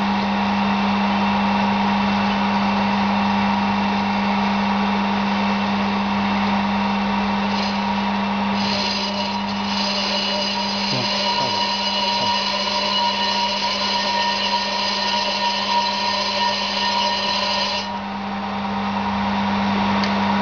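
C9365 brake disc/drum lathe running with a brake disc on its arbor: a steady motor hum, joined in the middle for about nine seconds by a higher whine.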